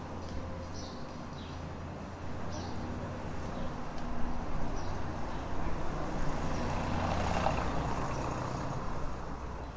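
A motor vehicle passing along a street, its engine drone growing louder over several seconds, then easing off near the end.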